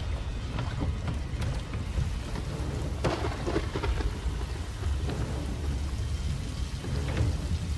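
Storm effects on a film soundtrack: heavy rain with a steady low rumble of thunder, swelling louder about three seconds in.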